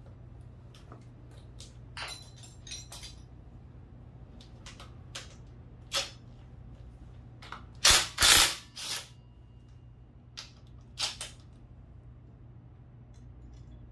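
Scattered metal clinks and knocks of hand tools and parts being handled on a partly dismantled scooter engine, loudest as a quick cluster of knocks a little past the middle. A steady low hum runs underneath.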